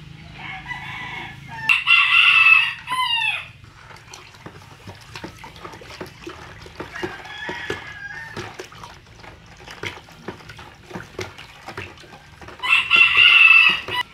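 A rooster crows twice. The first crow comes near the start and ends in a falling tail, and the second comes near the end. In between there are soft, irregular clicks and knocks from a wooden spoon stirring water in a plastic tub.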